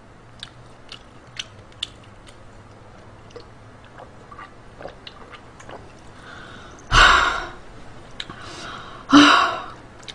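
A woman makes two sudden, loud, explosive bursts of breath, about two seconds apart, each after a quick breath in: a reflex set off by heavy black pepper in the food irritating her nose and throat. Faint chewing clicks come before them.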